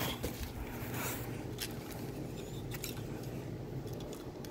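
A few faint rustles and clicks of packaging and a plastic toy figure being handled by hand.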